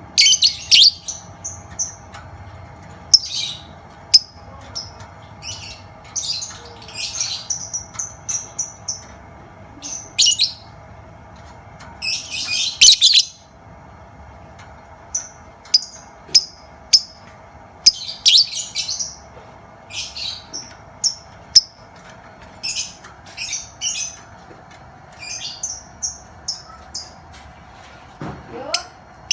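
Lovebird calling: short, sharp, high-pitched chirps and quick runs of notes in bursts every second or two.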